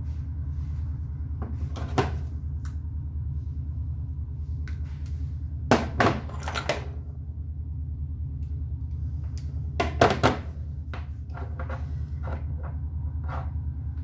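Clicks and knocks of hand tools and a cable being handled on a wooden workbench, over a steady low hum. The loudest clicks come in a cluster about six seconds in and as a pair about ten seconds in, followed by a run of lighter ticks.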